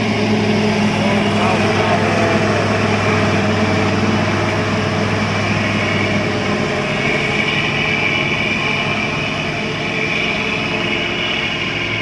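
Bulldozer's heavy diesel engine running steadily and loudly, with a higher-pitched whine coming up about halfway through.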